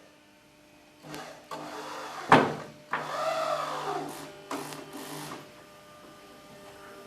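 A power screwdriver runs for about four seconds, its pitch sweeping as it drives a screw, with one loud sharp knock about two seconds in and a few lighter knocks.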